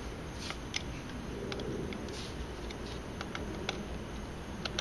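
Scattered light metallic clicks and taps as small bolts are handled and fitted by hand into a chrome air-filter cover.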